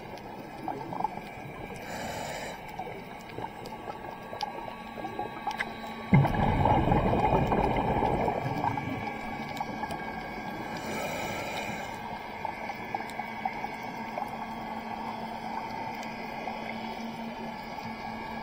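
Scuba diver breathing through a regulator underwater: two hissing inhales and, about a third of the way through, a loud rush of exhaled bubbles that fades over a few seconds, over a steady crackle.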